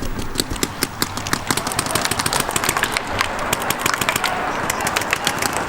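Several mechanical paintball markers firing at once: a rapid, irregular stream of sharp pops, many shots a second, overlapping throughout.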